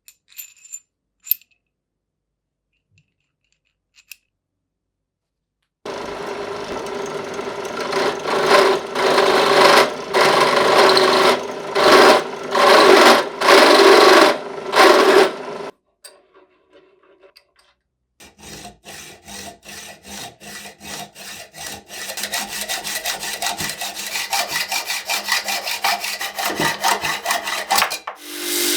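Metal parts of an old bench vise being worked with tools: a few sharp clicks, then a pulsing abrasive tool sound with a steady hum, followed by a long run of quick, even rubbing strokes like filing or sanding.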